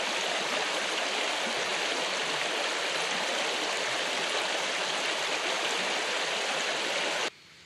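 Steady rush of running river water close to the microphone, cutting off abruptly near the end.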